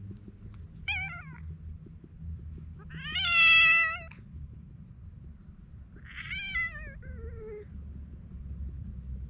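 Black-and-white stray cat meowing three times as it is patted and stroked: a short meow about a second in, a long, loud meow at about three seconds, and a third meow that drops in pitch towards its end.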